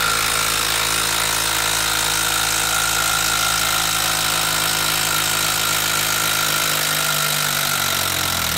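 Makita 12-volt brushed impact driver hammering continuously in reverse, backing a long structural screw out of pressure-treated wood. It cuts off abruptly near the end as the screw comes free.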